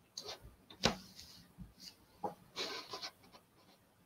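Faint scattered clicks and rustling, with one sharper click about a second in.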